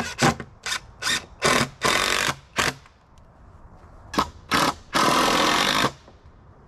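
Cordless drill-driver driving screws into wooden door-frame boards: a run of short trigger bursts in the first three seconds, two more around four seconds in, then one longer run of about a second.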